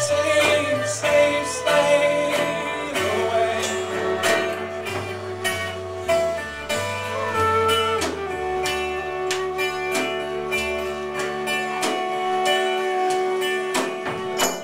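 Live band playing an instrumental passage between verses: a flute carrying sustained melody notes over plucked mandolin and keyboard with a moving bass line. The music drops away abruptly at the very end.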